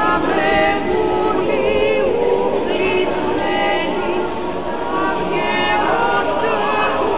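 A group of voices singing together, several pitched voices overlapping with some notes held.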